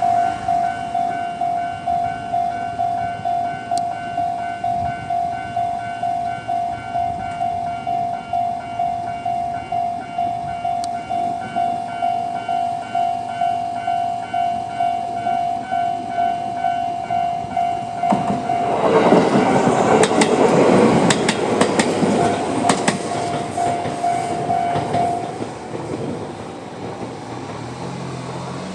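Japanese level-crossing alarm ringing in a steady ding-ding rhythm, a little under two strikes a second. About 18 seconds in, a Tobu 8000 series electric train passes over the crossing, loud, with its wheels clacking over the rail joints. The alarm stops about 25 seconds in and the train noise fades away.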